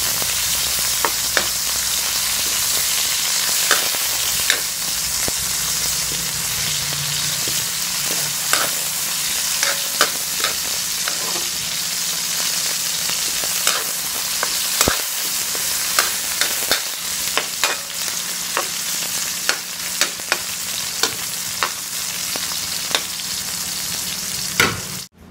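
Oil sizzling in an aluminium wok as sliced garlic, onion, tomato and okra sauté, with a metal spoon clinking and scraping against the pan at irregular intervals. The sound cuts off abruptly near the end.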